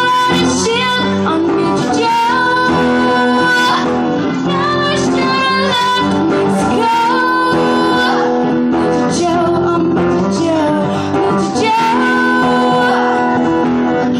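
A woman singing long, held notes while playing an acoustic guitar, amplified through a microphone.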